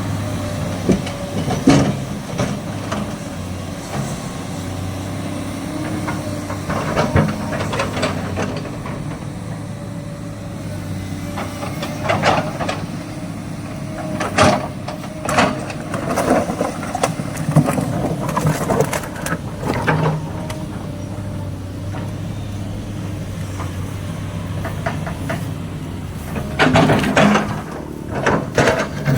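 SANY excavator's diesel engine running steadily, with repeated short clanks, knocks and squeals from the tracks and working machinery as it moves through mud.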